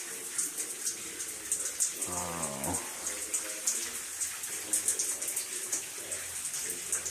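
Water spraying and spattering from a leaking joint in old galvanized supply pipe under mains pressure, a steady hiss with irregular splashing. A brief low murmur comes about two seconds in.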